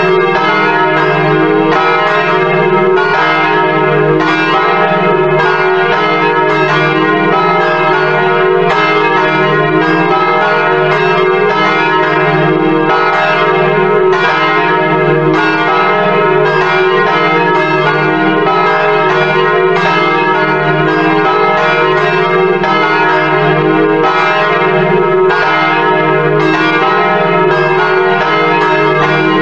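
Church bells pealing continuously, with strike after strike overlapping in quick succession.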